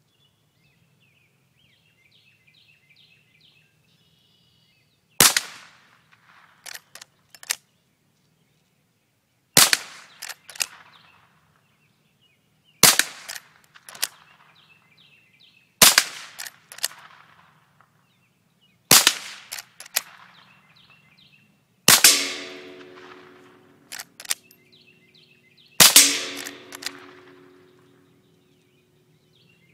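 Rifle fired seven times at a slow, deliberate pace, about one shot every three to four seconds. Each shot is followed within a second or so by two or three smaller sharp cracks.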